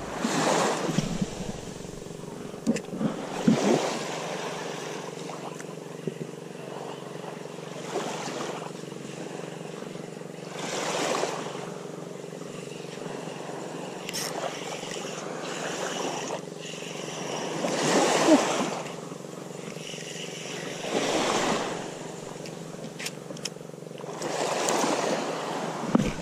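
Small waves washing onto a sandy shore, a soft swell every three to four seconds, over a steady low hum.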